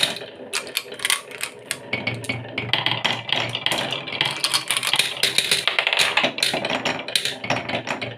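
Marbles rolling down grooved wooden chutes, clicking against the wood and each other in rapid, irregular clacks, with a low rolling rumble from about two seconds in.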